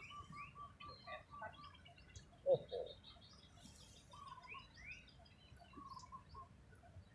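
Several birds calling and chirping. A quick run of short, even notes opens, rising chirps come through, and a louder, lower double note sounds about two and a half seconds in.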